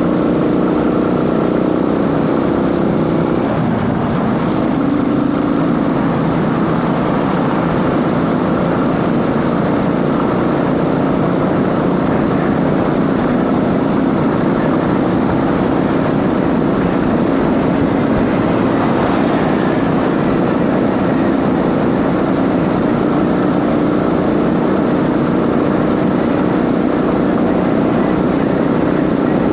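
Motorcycle engine running steadily under way, with intake noise and drive-chain noise mixed in. The engine note shifts about four seconds in, then holds steady.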